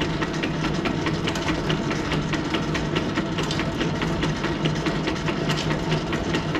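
An 80-year-old Wade 8A manual lathe running with its spindle turning: a steady hum of the motor and drive with many small, uneven ticks.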